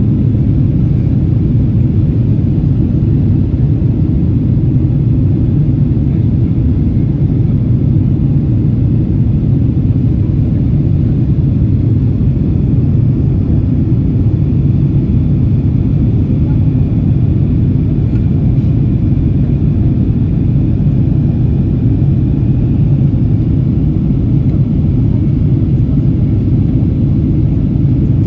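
Steady low roar of a Boeing 767-300ER's engines and rushing air, heard inside the passenger cabin as the airliner climbs after takeoff.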